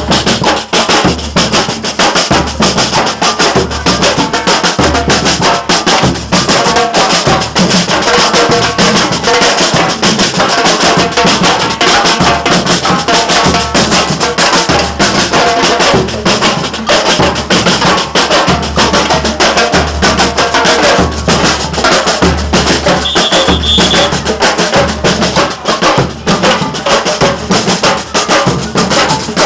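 Samba percussion band (batucada) playing a driving groove. Deep bass drum beats fall about once a second under a dense layer of shakers and higher drums. A brief high steady tone sounds about two-thirds of the way through.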